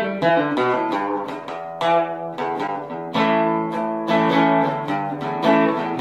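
Intro music played on acoustic guitar, a run of picked and strummed notes.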